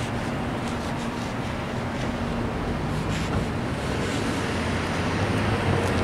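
Steady outdoor traffic noise with a low engine hum from vehicles on the street.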